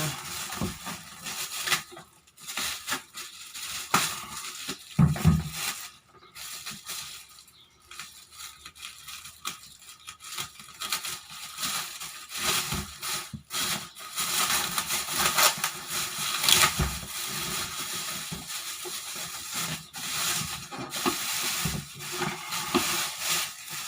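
Crinkling and crackling of packing material as a table fan's parts are unwrapped and pulled out of their box, with scattered sharp crackles and rubbing sounds throughout.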